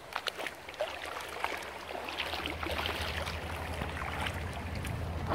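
Shallow river water trickling and lapping at a grassy bank, with many small irregular clicks and rustles, over a low steady rumble that grows louder from about two seconds in.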